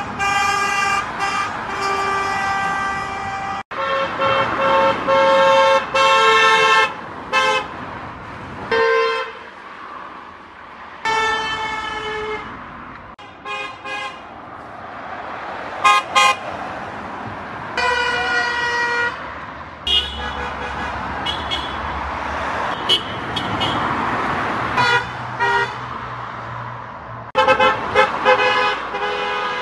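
Car horns of passing cars honking one after another, in long blasts and short toots at several different pitches, with the rush of cars driving by between them. The drivers are honking at the house as they pass.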